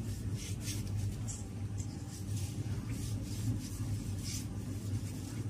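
Soft, intermittent rustling and scraping as hands rub salt into raw pork pieces in a plastic basket, salting the meat for curing, over a steady low hum.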